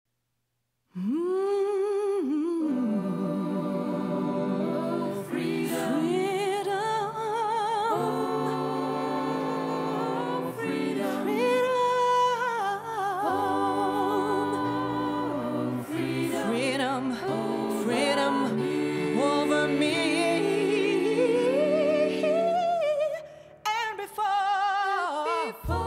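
Music with singing voices: slow, sustained sung notes with vibrato over several layered parts, starting about a second in.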